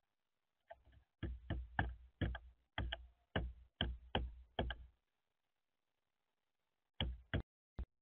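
Black-billed magpie pecking at peanuts on a wooden feeder tray, its bill knocking sharply on the shells and boards close to the camera: a quick run of about three knocks a second for some four seconds, then a pause and a few more knocks near the end.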